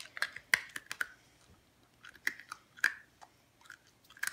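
A person chewing dry dog food kibble, a run of irregular crisp crunches in the first second and again in the middle.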